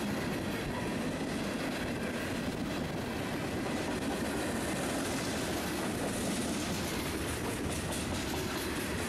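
Freight train of tank cars and covered hoppers rolling past close by: a steady rumble of steel wheels on the rails, with some wheel clatter over the rail joints.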